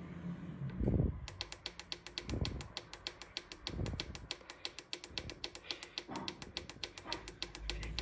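Rointe Kyros electric radiator's digital controller clicking rapidly, about seven short ticks a second, as a button is held and the set-time minutes scroll. A few soft low thumps sound under the clicking.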